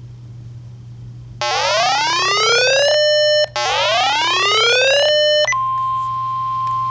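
Emergency alert signal: two electronic whoops, each sweeping upward and then holding, followed a moment later by a steady single alarm tone near 1 kHz, the weather-radio warning alarm tone that introduces the spoken warning. A steady low hum runs underneath.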